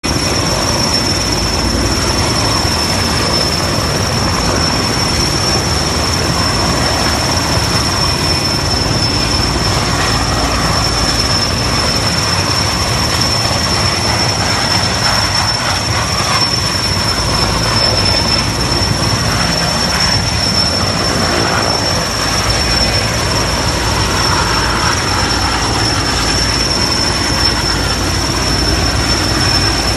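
Erickson S-64 Air-Crane heavy-lift helicopter hovering with a sling load: its twin turboshaft engines and rotors make a loud, steady noise with a constant high-pitched whine.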